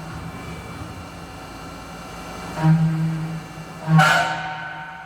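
UGINT UT650 vertical machining center milling a part, with a steady hum and a pitched whine that swells three times, about every second and a half, as the cutter bites. The middle swell carries a short hiss of cutting.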